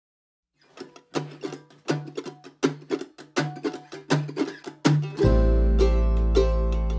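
Acoustic folk instrumental intro: a mandolin picks a steady rhythmic figure of crisp separate notes. About five seconds in, deep sustained double-bass notes and a fuller accompaniment come in.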